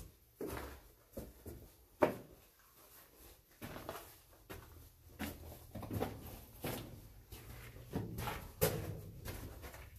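Footsteps scuffing and crunching on loose rock and gravel inside a mine tunnel, uneven, with a sharper knock about two seconds in.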